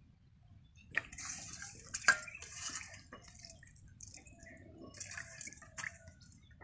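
Water snails being washed by hand in a steel bowl of water: irregular splashing and dripping in bursts, with sharp clicks of shells against the steel, the loudest about two seconds in.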